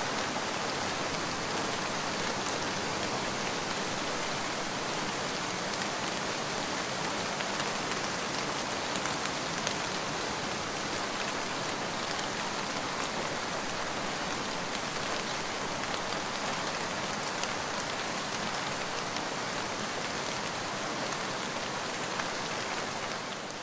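Steady rain falling: a dense, even hiss dotted with fine drop ticks.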